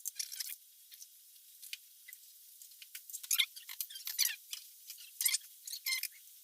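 Gritty scratching and squeaking of a poppet valve being lapped into its seat in the BMW M50 cylinder head with grinding compound, in short irregular strokes that grow busier after about three seconds.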